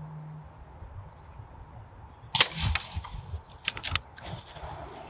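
Daystate Alpha Wolf pre-charged pneumatic air rifle firing a single shot: one sharp crack about halfway through, then a few quick sharp clicks about a second later.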